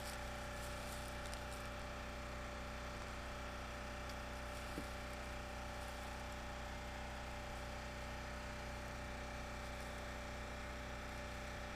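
Steady machine hum made of several held tones over a low rumble, with one faint tick about five seconds in.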